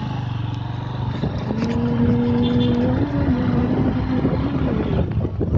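Engine of a small vehicle running as it drives along, over the noise of the ride and wind. About a second and a half in, a higher, steady engine note comes in and the sound grows louder; the note holds until near the end.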